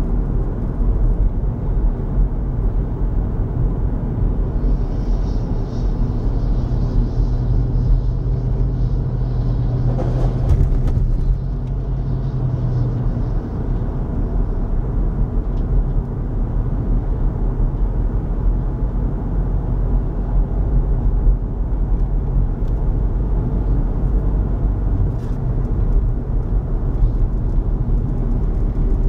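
A car driving along a road, heard from inside the cabin: a steady low rumble of engine and tyre noise, with a steady hum added for several seconds in the first half.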